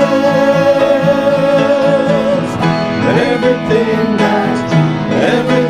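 Worship song with band accompaniment: a singer holds a long wavering note for about two and a half seconds, then the music moves on into the next phrase over plucked-string accompaniment.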